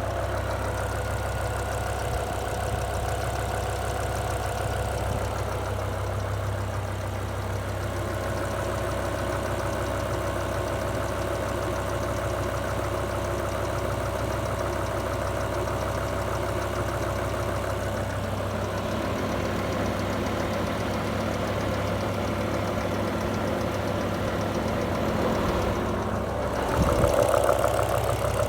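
BMW E60 M5's 5.0-litre S85 V10 engine idling with a rapid, even ticking that the owner says sounds like a lifter. About 26 seconds in the sound gets louder.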